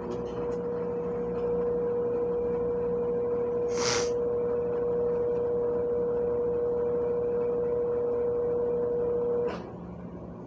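Consul CWS 12 top-loading washing machine running with a steady whine over a low hum, which cuts off suddenly about nine and a half seconds in. There is a brief hiss about four seconds in.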